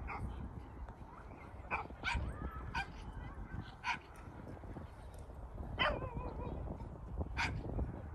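A dog barking and yipping in short, high calls, about seven of them spread irregularly, over a steady low rumble.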